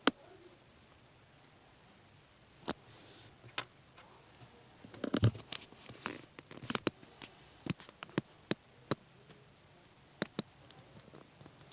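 Scattered light taps and clicks of folded paper handled on a tabletop, irregular, with a small cluster about five seconds in.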